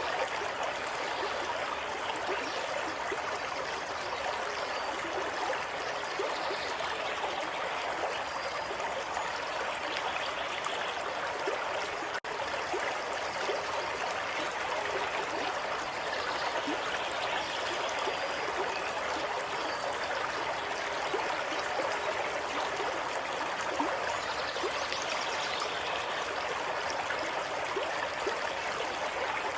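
Water flowing and trickling steadily over stones, a continuous stream-like rush, broken by a momentary gap about twelve seconds in.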